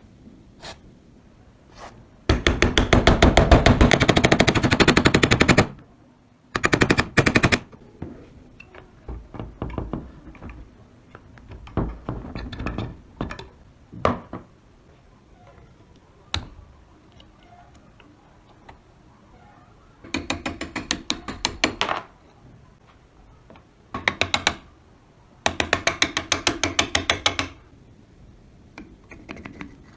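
Bursts of rapid, evenly spaced sharp clicks, each lasting one to three seconds. The longest comes a couple of seconds in, and four shorter bursts follow, with scattered single clicks and knocks between them.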